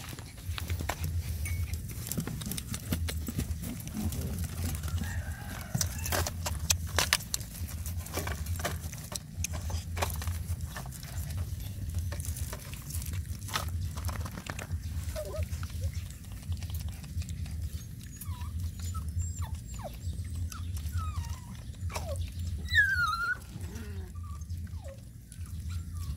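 Young puppies nursing from their mother dog: scrabbling, rustling and small clicks, with a few short high puppy squeaks in the second half, one rising squeal the clearest. A steady low rumble runs underneath.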